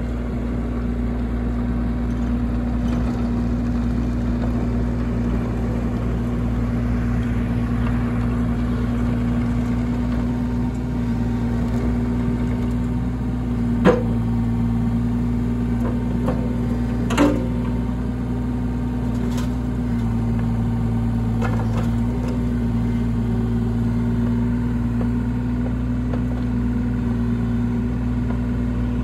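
A 2008 New Holland E27.2C mini excavator's engine running steadily, its note shifting slightly as the machine works. Two sharp metallic clanks come about three seconds apart near the middle.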